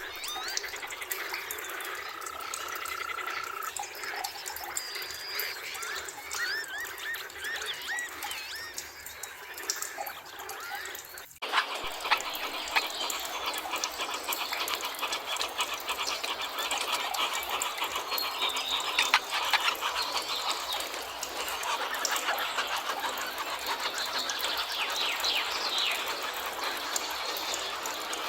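Birds singing in a forest with whistled, gliding calls, including one held whistle. About eleven seconds in, the sound cuts abruptly to a dense chorus of rapid clicking and trilling animal calls.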